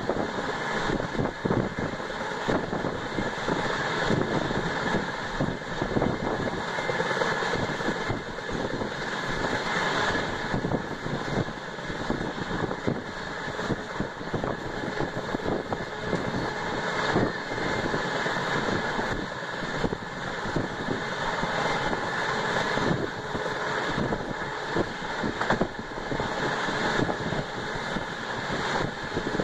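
Running noise of an LHB passenger coach at speed, heard from inside the train: a steady rumble of wheels on rail with constant irregular clatter and rattling.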